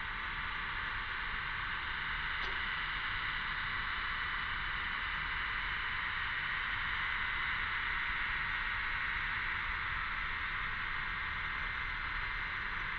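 Cicadas buzzing in a steady, unbroken chorus, a dense high hiss that neither rises nor falls.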